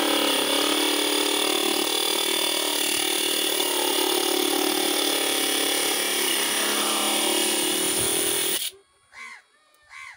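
Homemade grinder, a 12-volt DC motor spinning a small abrasive disc, running steadily while the disc cuts into a metal rod. It stops abruptly near the end, leaving a few crow caws.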